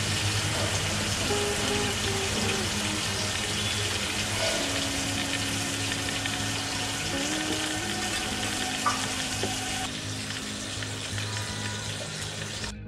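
Whole climbing perch (koi fish) coated in salt and turmeric sizzling in hot oil in a kadai, a steady frying hiss. The sizzle thins about ten seconds in and cuts off suddenly near the end. Soft background music runs underneath.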